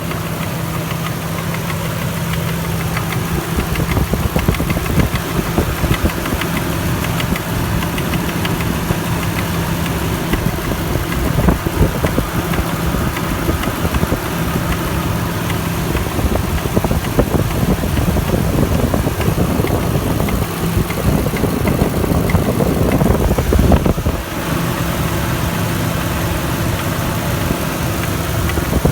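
Toyota 1UZ-FE VVTi V8 engine running with a rapid, repetitive knock or tapping that the owner cannot identify. Past the middle its note changes and grows louder for several seconds, then drops back suddenly.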